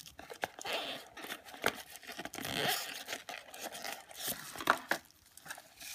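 Thin plastic wrapping bag crinkling and a cardboard box rustling as the wrapped power bank is lifted out by hand, with a few sharp clicks and taps, the loudest about three-quarters of the way through.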